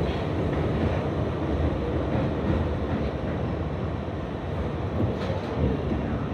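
New York City subway train running through a tunnel, heard from inside the car: a steady low rumble of wheels on rail, with a few faint clicks.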